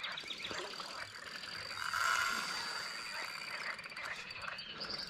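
Frogs croaking in a chorus of short repeated calls, with a steady high insect trill behind them. A brief louder rush of noise comes about two seconds in.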